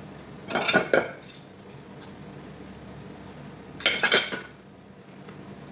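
Dishes clattering against each other in a kitchen sink during hand washing: two short bouts of clinking and knocking, one about half a second in and another about four seconds in.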